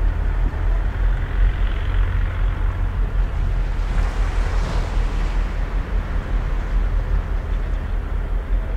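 Wind on the microphone, a low, uneven rumble, over the wash of sea water at the shore; a wave swells and hisses up about four seconds in.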